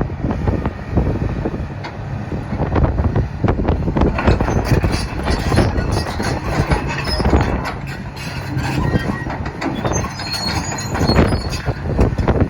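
Komatsu PC300LC-7 excavator travelling on its steel tracks, the track links clanking over the rollers and sprockets with intermittent high squeals, over the steady run of its six-cylinder diesel engine. The squealing grows more noticeable near the end.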